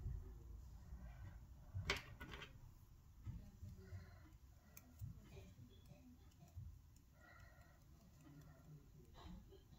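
Faint handling noise of hands pressing and turning a small piece of Play-Doh modelling dough, with one sharp click about two seconds in and a few softer ticks.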